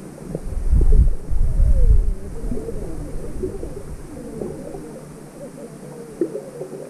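Sea water washing, with a heavy low rumble buffeting the microphone that is strongest from about half a second to two seconds in.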